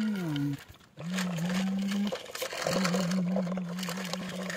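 A man's voice humming a low, steady drone in imitation of a tractor engine, held in long stretches with short breaks and dipping in pitch near the start. Toy plastic wheels crackle over gritty asphalt underneath.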